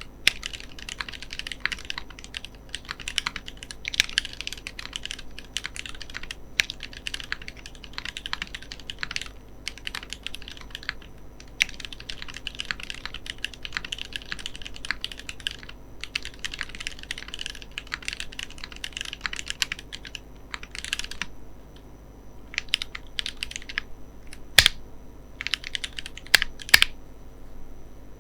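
Typing on a mechanical keyboard fitted with Cherry MX Black Clear-Top ('Nixie') linear switches: fast runs of key clacks with brief pauses, and a few louder single strikes near the end.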